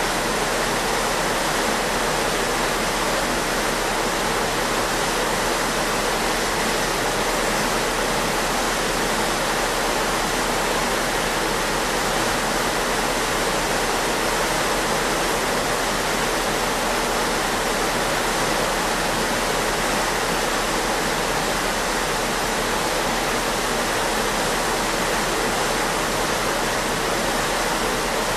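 Steady rushing and churning of a ship's wake behind the stern, an even wash of water noise that never swells or breaks, with a constant low rumble beneath it.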